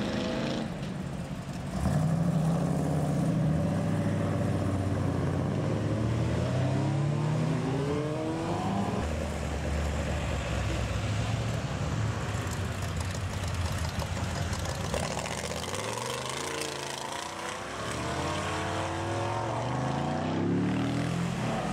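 Several custom hot rods and classic cars driving past one after another, engines accelerating as they pull away, the engine note climbing several times.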